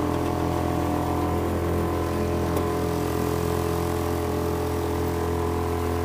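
Honda 2.3 single-cylinder four-stroke outboard motor pushing the boat along at a constant throttle, a steady drone heard from inside the boat.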